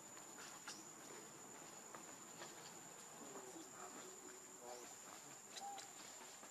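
Faint, steady, high-pitched insect drone, one unbroken whine, with scattered small ticks and a few faint short calls around the middle.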